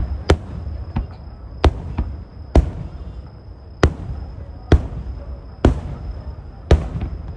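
Aerial fireworks bursting: a run of about eight sharp bangs, roughly one a second at uneven intervals, over a steady low rumble.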